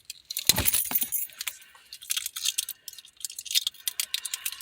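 Small hard objects rattling and clinking as things are handled, with a heavier thump about half a second in.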